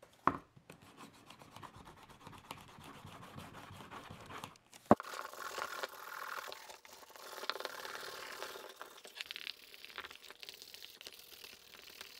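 A pad rubbing and scraping over the surface of a leather knife sheath, close up, with two sharp knocks, one just after the start and one about five seconds in.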